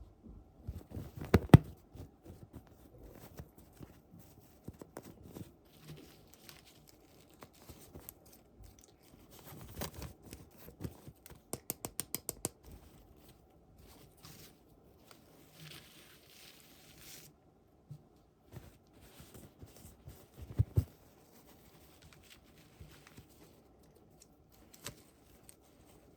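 Hands unboxing small toys: packaging tearing and rustling, with scattered clicks and taps of plastic. The loudest taps come about a second and a half in and again around twenty-one seconds, and a quick run of about eight clicks comes near the middle.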